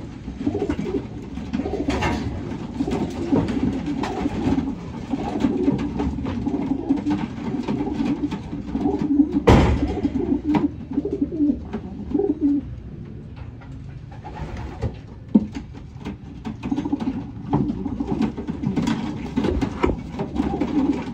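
A loft full of racing pigeons cooing, many birds overlapping, with scattered clicks and one sharp knock about halfway through.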